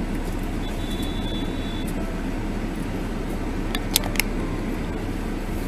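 Steady engine and road noise inside a car's cabin. A short, thin, high beep sounds a little after the start and lasts about a second, and two sharp clicks come close together about four seconds in.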